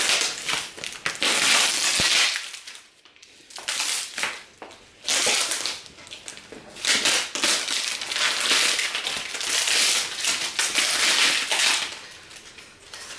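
Clear plastic wrap crinkling and crackling as it is pulled, torn and cut at with scissors on a cardboard box. It comes in irregular runs, with short lulls about two seconds in and near the end.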